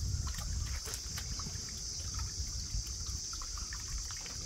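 Steady high-pitched insect chorus over a low background noise, with a few faint clicks.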